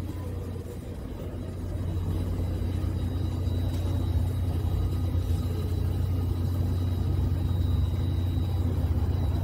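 Steady low mechanical rumble and hum with a faint high whine, growing slightly louder about two seconds in.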